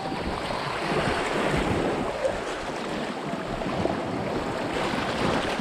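Sea waves washing over a rocky shore, a steady rushing wash, with wind buffeting the microphone.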